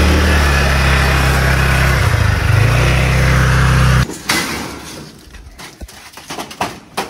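Small motor scooter engine running with a steady low note, wavering briefly about two seconds in, then cutting off abruptly about four seconds in. A few light knocks and clicks follow.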